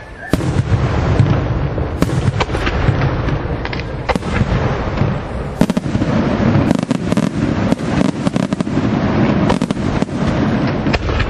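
Aerial firework shells bursting in quick succession: many sharp bangs over a continuous low rumble of overlapping explosions, starting abruptly just after the beginning.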